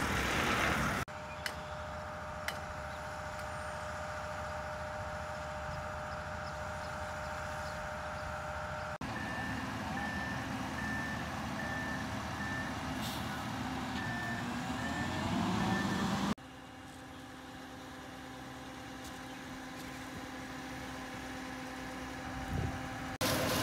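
Heavy concrete trucks running (a boom pump truck and a ready-mix mixer truck) across several short cuts, their engines steady. In the middle a truck's reversing alarm beeps at a regular pace for a few seconds, and an engine speeds up just before the next cut.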